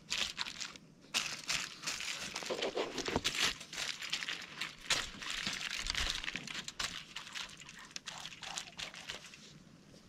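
Aluminium foil crinkling and rustling under hands that rub marinated whole fish on it, in a run of short, irregular crackles that thin out and quieten near the end.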